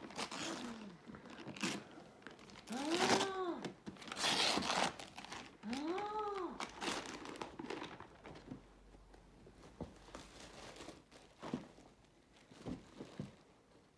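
Wrapping paper being torn and crinkled as a present is unwrapped, in repeated rustles and rips that thin out in the second half. Twice, about 3 and 6 seconds in, a voice makes a short call that rises and falls in pitch.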